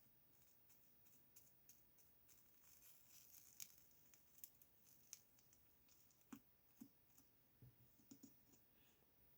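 Faint clicking and crackling of slime being squeezed and pressed by hand, with a few soft low thuds after about six seconds.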